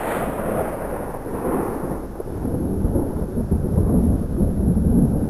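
Thunder: starts suddenly with a crash, then rolls on as a long low rumble that grows louder toward the end.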